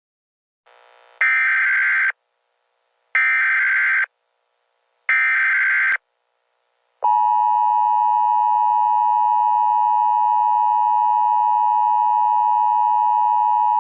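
Emergency Alert System opening tones. First come three harsh digital data bursts of the SAME header, each about a second long with short gaps between them. Then, about seven seconds in, the steady two-tone EAS attention signal starts and holds.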